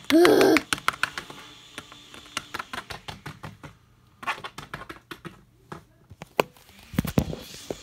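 Light, irregular clicks and taps of hard plastic Littlest Pet Shop toy figures being hopped and handled on a wooden floor, preceded by a short vocal sound at the very start.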